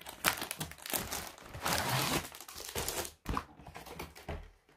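Diamond painting kit being unpacked: the cardboard box and the plastic film over the framed canvas rustling and crinkling as the canvas is slid out, loudest about two seconds in. A couple of soft knocks follow near the end.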